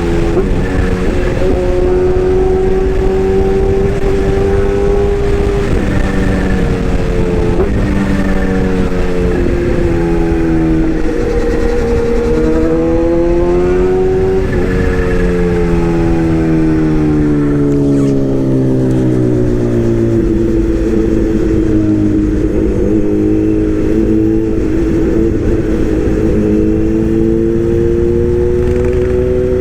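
A motor running continuously, its pitch drifting slowly up and down every few seconds rather than staying at one speed.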